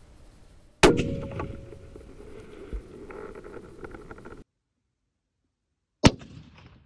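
Hunting rifle shot at a mule deer: one sharp crack about a second in, followed by a long rolling echo with a short low thump about two seconds later, before the sound cuts off abruptly. A second rifle shot near the end, with a shorter echo.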